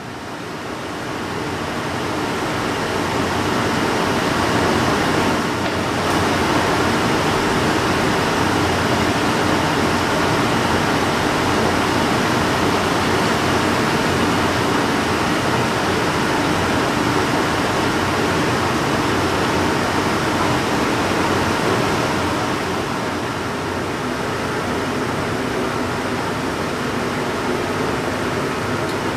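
Steady rushing machinery noise in a shoe-repair shop, fading in over the first few seconds and then holding level.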